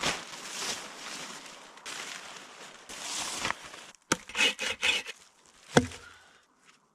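Wood rubbing and scraping for a few seconds, followed by a handful of sharp knocks, the loudest just before the end.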